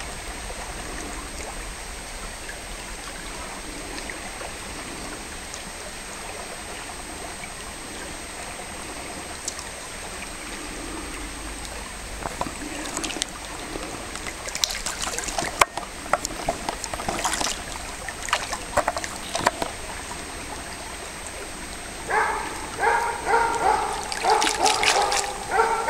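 Shallow stream water trickling steadily over a gravel bed. From about halfway, sharp clicks and crackles come in. Near the end, a pitched sound repeats in quick pulses for about four seconds.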